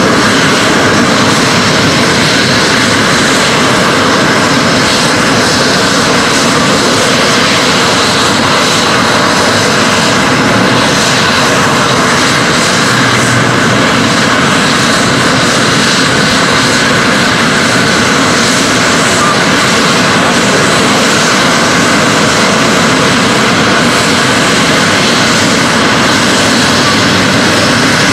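SEPECAT Jaguar jets taxiing with their twin Rolls-Royce Turbomeca Adour turbofans running: a loud, steady jet roar with a faint high whine.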